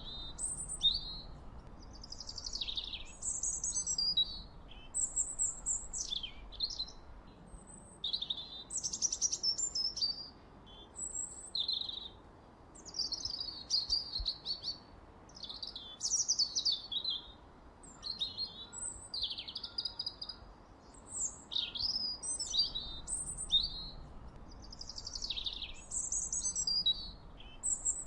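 A songbird singing a long run of varied, high whistled phrases: warbles, quick trills and rising and falling glides, one after another with brief pauses between them.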